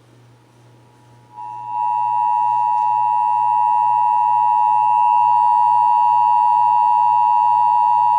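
Emergency Alert System attention signal: the steady dual-tone alarm of two pitches sounded together. It comes in about a second and a half in over a faint low hum and holds unchanged, marking the start of a required monthly test alert.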